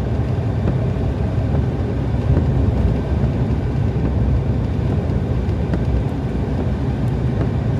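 A truck driving through snow: a steady low rumble of engine and tyres.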